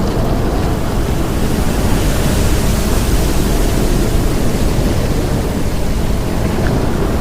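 Steady, loud storm noise: a dense rushing of wind and rain with a heavy low rumble.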